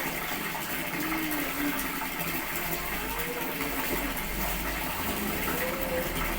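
Water running steadily, pouring and gushing as water is supplied for the pressure washer.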